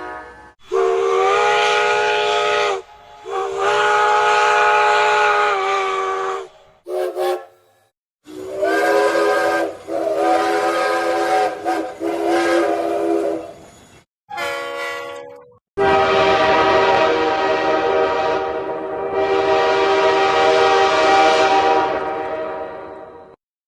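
A string of train whistle and horn blasts, about half a dozen. Each sounds several notes at once as a chord, over a breathy hiss. Most are long and held, with a short toot about seven seconds in and a lower-pitched blast about fourteen seconds in.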